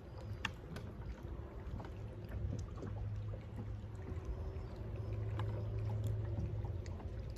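Bow-mounted electric trolling motor running with a low steady hum that grows stronger about three seconds in, holding the bass boat in place, with a few faint ticks over it.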